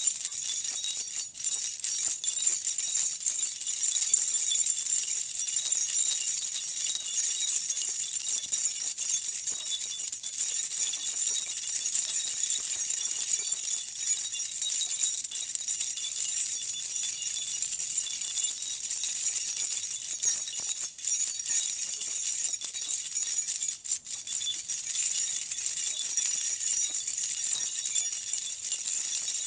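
A bunch of metal keys being shaken and jangled without letup, the keys clinking against each other, with a few momentary breaks.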